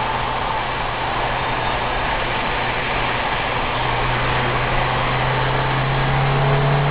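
Car engine running steadily with road noise, as heard from a moving car; the engine hum grows louder over the last few seconds.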